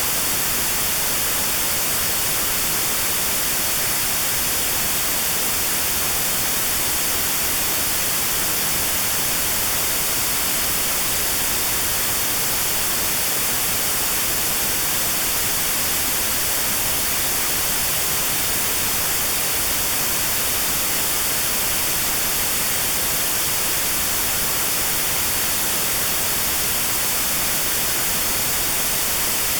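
Steady white noise with a narrow band around 4 kHz cut out (notched white noise for tinnitus sound therapy), an even hiss heavier in the highs.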